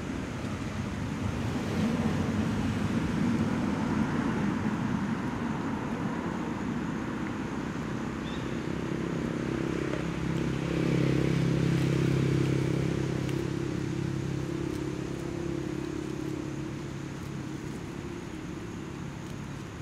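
Engine of a passing motor vehicle: a steady drone that swells, is loudest about eleven to thirteen seconds in, then fades.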